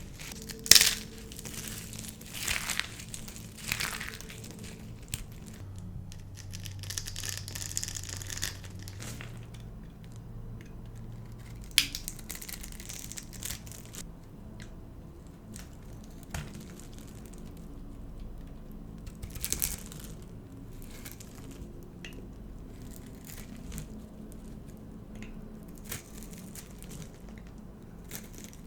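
Dry soap being crushed and snapped by hand, crackling and crunching in irregular bursts. The strokes come thickest in the first few seconds, with one loud single snap about twelve seconds in and another brief flurry about twenty seconds in.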